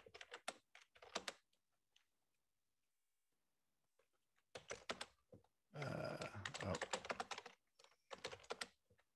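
Computer keyboard typing in quick bursts of keystrokes, with a pause of about three seconds early on before the typing picks up again.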